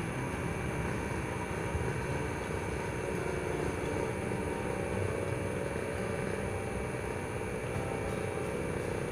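Steady low rumble of distant city traffic with no distinct events, over a faint constant high whine.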